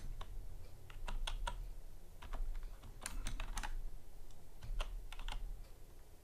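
Typing on a computer keyboard: short runs of key clicks with pauses in between.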